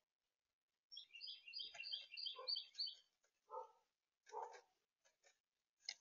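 A small songbird calling a quick run of about seven repeated high notes, followed by short scuffles and sharp taps as a chickadee arrives at the sunflower-seed feeder.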